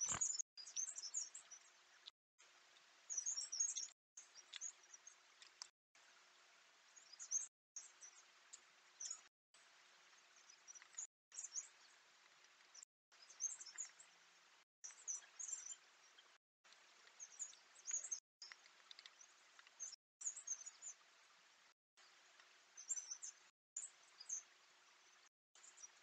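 Faint, high-pitched bird chirps in woodland, coming in short clusters every couple of seconds, with the sound cutting out briefly between them. A faint steady hiss and a low hum lie underneath.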